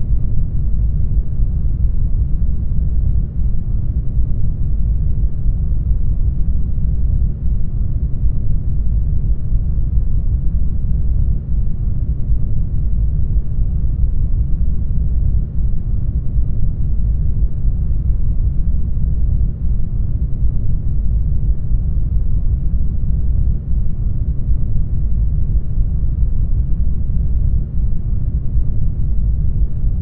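Steady, deep rumbling noise with no separate sounds standing out.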